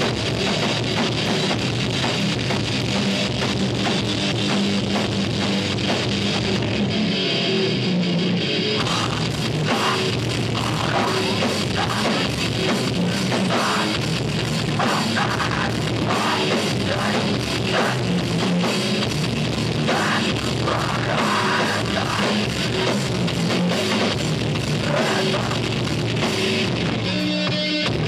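Live rock band playing heavy music on drum kit and electric guitar. Near the end the drums drop back and the guitar carries on.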